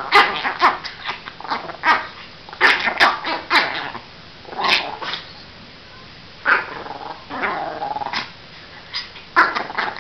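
Small dog growling and giving short snarling barks in irregular bursts while it snaps and mouths at a person's hand in rough play, with a quieter pause midway.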